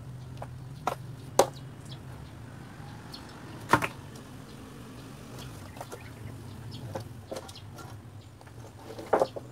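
Wooden planks knocking and clattering together as scrap boards are lifted and dropped on a pile: a few sharp knocks, the loudest about a second and a half and about four seconds in, and a quick double knock near the end, over a steady low hum.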